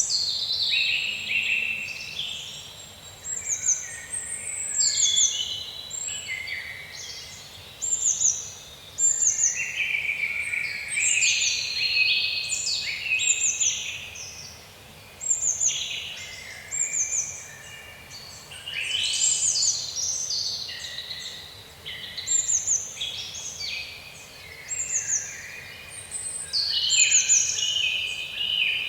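Birds singing and chirping: clusters of short, high notes that sweep downward, over lower, fuller calls, coming and going every second or two.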